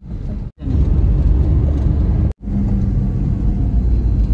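Car engine and road rumble heard from inside the cabin while driving, a steady low drone that gets louder about half a second in as the car pulls away. It cuts out briefly twice.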